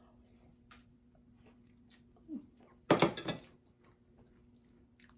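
A person quietly chewing a mouthful of rice-noodle pancit, with faint scattered clicks. About three seconds in, a brief loud burst of clattering noise.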